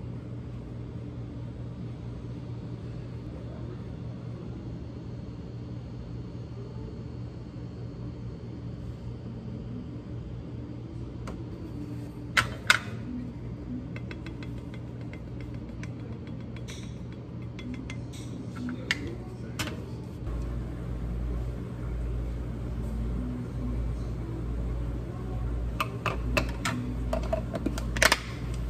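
Café work sounds: a steady machine hum with occasional sharp clinks and knocks. The knocks come once about twelve seconds in, a couple of times around twenty seconds, and in a quick cluster near the end. A deeper rumble comes in about twenty seconds in.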